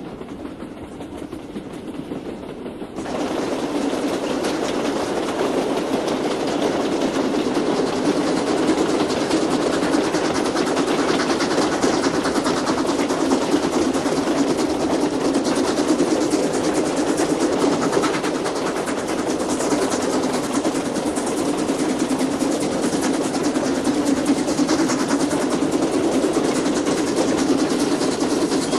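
Steam train running at speed, its wheels clattering on the rails under a steady rush of noise. For about the first three seconds it is muffled, as heard inside a wooden baggage van, then it becomes suddenly louder and more open, as from outside the train.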